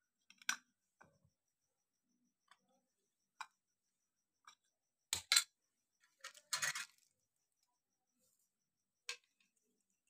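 Scattered clicks and knocks of a taken-apart hair dryer's plastic parts and hand tools being handled on a cloth-covered table, with a loud double knock about five seconds in and a short scraping rustle just after.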